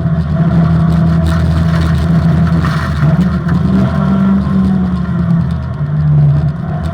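Opel Manta rally car's engine running hard on a special stage, its note rising and falling with throttle and gear changes.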